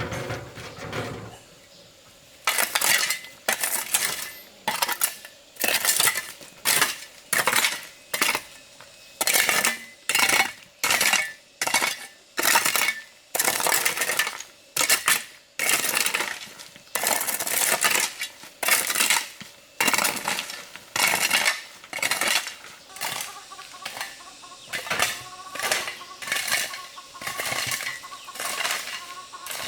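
Repeated metallic clinking strokes, about one to two a second, like a metal utensil or scoop working against a metal pot.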